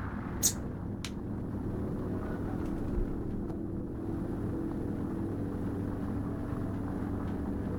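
Steady low background rumble, like distant traffic, with two short, sharp, high-pitched clicks about half a second and a second in.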